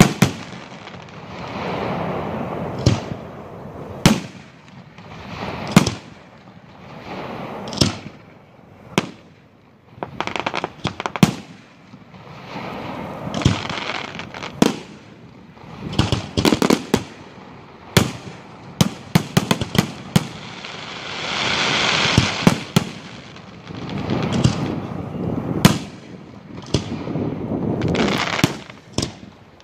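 Aerial fireworks shells bursting with a sharp bang every second or two and crackling between the bangs. About two-thirds through there is a quick run of rapid pops, followed by a swelling hiss.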